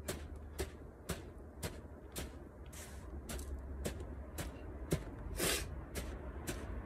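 Hands alternately striking down into a bucket of sand, a steady run of short sharp thuds about two a second, with one longer scraping rush of sand a little past halfway.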